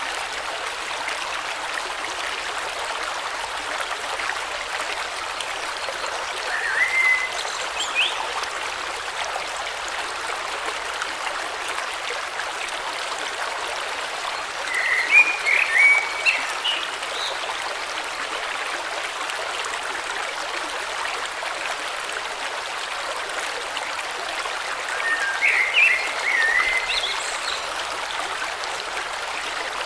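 Steady flowing water of a river stream, with a bird giving short chirping phrases three times over it.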